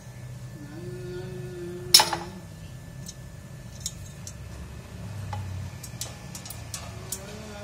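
Metal clinks and ticks from hand work on a grass cutter's blade hub during disassembly. One sharp, loud clink comes about two seconds in, followed by scattered light ticks.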